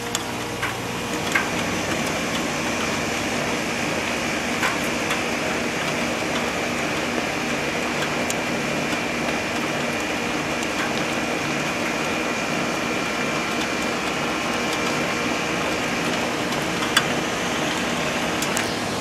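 Rheem heat pump running steadily in heat mode just after its first start-up: an even whooshing hum with a high steady whine, and a few faint ticks.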